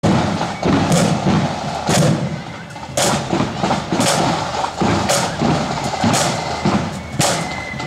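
Marching band drum section playing a parade beat: side drums rattling under a heavy drum stroke that lands about once a second.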